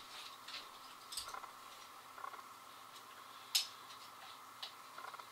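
Scattered sharp clicks of a handgun and its holster being handled during dry-fire practice, with the loudest click about three and a half seconds in. A faint steady whine runs underneath.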